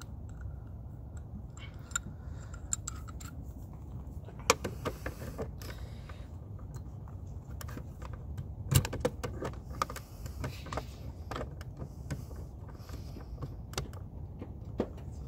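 Metal pipe wrench clicking and clinking against a stick-on blind spot mirror as its jaws are set around it and it is gripped and twisted to break the adhesive. Scattered small clicks with two sharp knocks, about 4.5 and 9 seconds in, over a steady low rumble.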